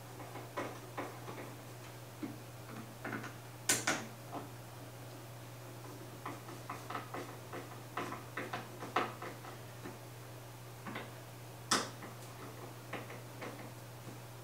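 Small, irregular clicks and ticks of a screwdriver working the mounting screws of an EVGA liquid-cooler pump head, with two sharper clacks, one about four seconds in and one near twelve seconds. A steady low hum runs underneath.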